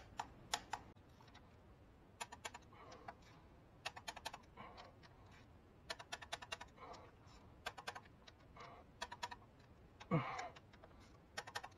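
Ratchet wrench clicking in short bursts of rapid ticks, with pauses between strokes, as small bolts are tightened. A single louder, longer sound about ten seconds in.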